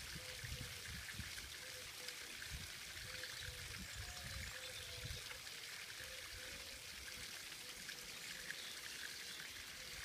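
Small garden-pond waterfall trickling steadily over stacked rocks into the pond.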